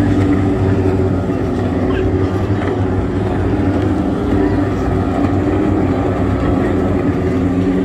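Outboard engines of several small racing powerboats running at speed together, a steady buzzing drone.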